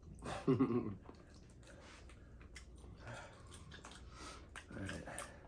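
Chewing and small wet mouth clicks of people eating chili dogs, with a brief muffled voice sound about half a second in and again near the end.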